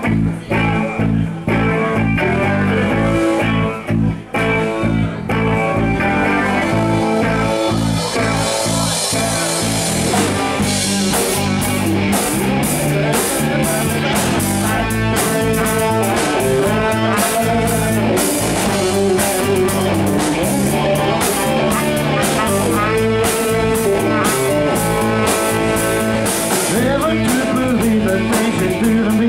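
Live blues-rock band playing: electric guitars, bass, drum kit and saxophone, with a man singing into a microphone. The opening is choppier, and the full band with cymbals comes in about eight seconds in.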